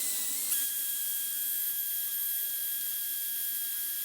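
Drill at its highest speed with a sanding pad grinding down the plastic lip inside a scooter battery housing: a steady hiss of sanding with a high, even motor whine that comes in about half a second in.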